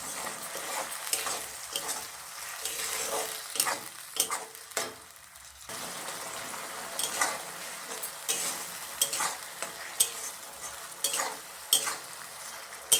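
Onion paste sizzling as it fries in hot oil with whole spices and fried onions. A spatula stirring it scrapes and knocks against the pan again and again.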